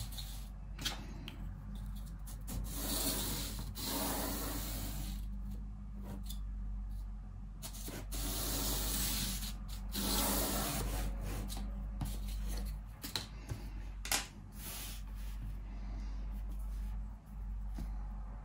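Pencil scratching across paper in strokes of a second or two, drawing lines along a wooden ruler and sketching, with a few sharp clicks in between.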